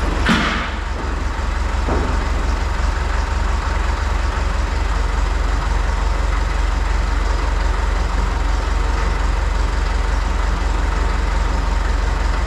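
An engine running steadily with a deep, evenly pulsing rumble, and a brief hiss just after the start.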